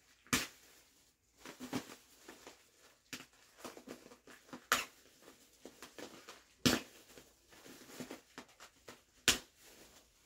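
Handling noise from a plastic-framed sand art lamp and a syringe: a few sharp clicks and light taps, the loudest about half a second, five, six and a half and nine seconds in, as the syringe is worked at the fill hole to draw out air bubbles.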